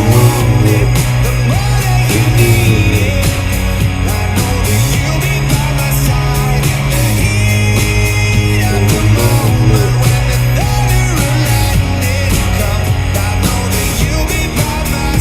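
Upbeat rock song with male lead vocals, electric instruments, a driving bass line and a steady drum beat.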